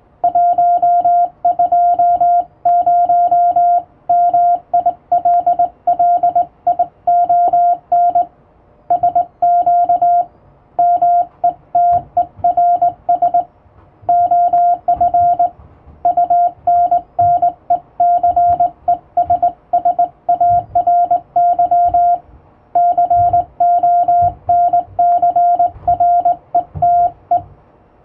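International Morse code hand-sent on a straight key, heard as a beeping sidetone keyed on and off in dots and dashes, with short pauses between words. Faint low knocks sit underneath the tone.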